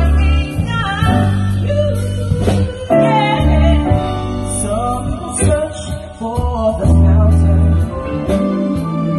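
A live band playing: a female singer's voice over a Roland keyboard and electric guitar, with deep sustained bass notes that change every second or so, amplified through small PA speakers.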